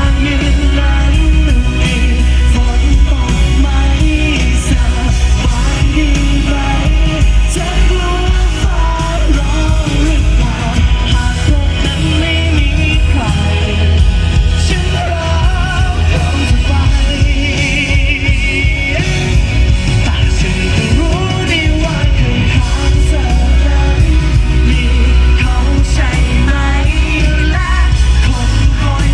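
Live pop-rock band playing with a lead vocal, over heavy drums, bass, guitar and synthesizer.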